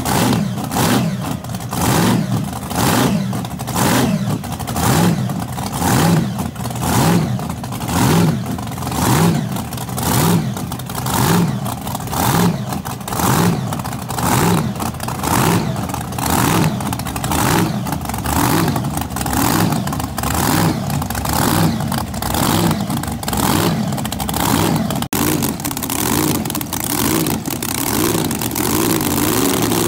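Supercharged V8 of a blown drag boat idling through open headers with the typical blower surge. The engine note swells and sags in an even lope, a little more than once a second.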